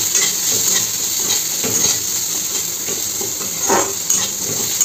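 Chopped onions, chana dal and peanuts sizzling in a karahi while a metal spatula stirs them, scraping the pan in repeated strokes, with one louder scrape near the end.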